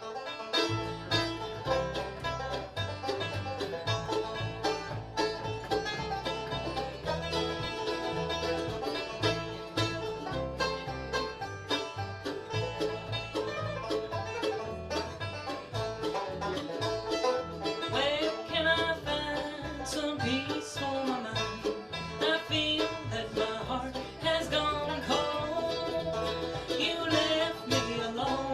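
Bluegrass band playing at a brisk, steady tempo: Gibson banjo rolls, Gibson guitar and Flatiron mandolin over a pulsing Kay upright bass line.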